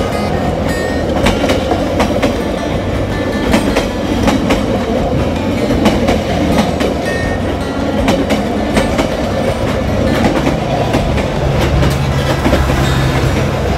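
Vietnam Railways passenger coaches rolling past close by, wheels clacking irregularly over the rail joints over a steady rumble.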